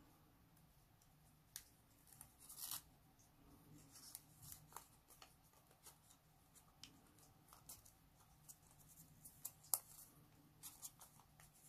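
Faint crinkling and rustling of folded colour paper handled by fingers as origami pieces are slotted into each other, in short scattered crackles.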